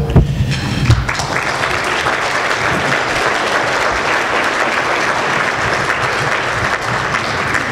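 Audience applauding: many hands clapping steadily, building up in the first second and holding throughout. Two low thumps stand out near the start.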